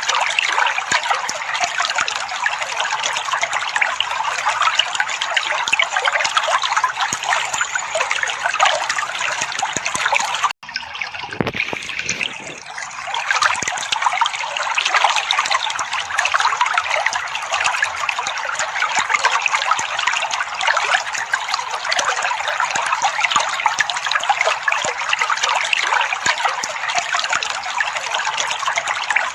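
Water trickling and splashing steadily. About ten seconds in it cuts off abruptly, returns quieter for a few seconds, then continues at full level.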